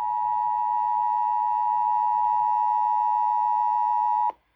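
Emergency Alert System attention signal: a steady two-tone alarm, two close pitches near 1 kHz sounded together, announcing a severe weather warning. It cuts off abruptly near the end.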